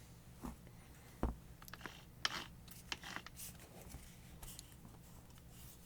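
Scattered light clicks, taps and a few scrapes of things being handled, over a faint steady low hum.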